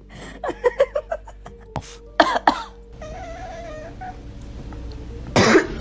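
A cat coughing in a run of short, repeated coughs, with a louder burst about two seconds in and another near the end.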